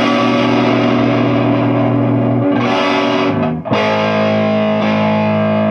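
Electric guitar played through a Fender 5F1 Tweed Champ–style kit amp, a single-ended 6V6 tube amp, with a gritty, distorted tone. Chords are struck and left to ring, with a short break about three and a half seconds in before the next chord rings on.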